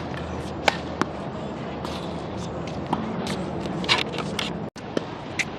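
Tennis ball being struck by a racket on a serve and bouncing on the hard court: a few sharp, separate pops over a steady background hiss. The sound cuts out for an instant near the end.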